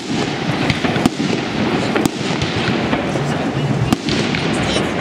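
Fireworks display: aerial shells bursting with several sharp bangs over a continuous crackle.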